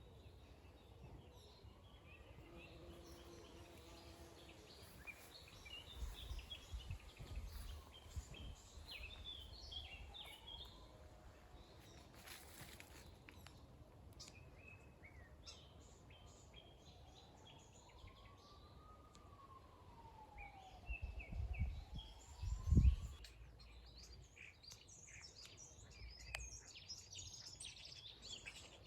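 Several songbirds chirping and singing in a morning chorus, with a faint rising-and-falling wail about two-thirds of the way through and a couple of short low rumbles.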